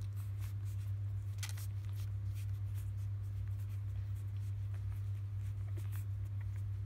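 A steady low hum, with faint scratchy rustles and small clicks from newborn Labrador retriever puppies nursing and squirming against their mother's fur.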